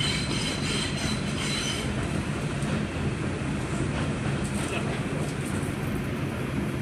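R142 subway car running through the tunnel: a steady rumble of wheels on rail and traction motors. A thin high whine sits over it for the first two seconds or so.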